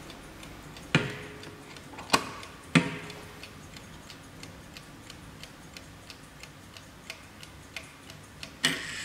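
Hermle mantel clock's mechanical movement ticking steadily. Three sharp clicks with brief metallic ringing in the first three seconds come as its brass bezel glass door is opened, and there is a short rustle near the end as the hands are handled.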